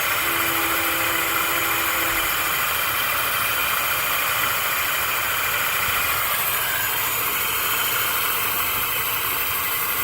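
E-bike electric motor on a 72 V controller at power level 5, spinning with essentially no load: a steady whir and high-pitched whine held at constant speed, with a brief low hum in the first couple of seconds.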